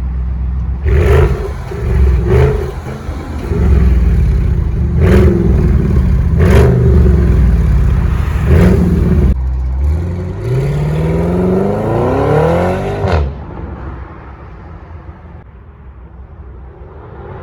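Audi RS6 C8's twin-turbo V8 engine revving, with several sharp loud bursts over the first nine seconds. About ten seconds in it climbs in a long rising rev, cuts off suddenly near thirteen seconds, and a quieter engine sound carries on.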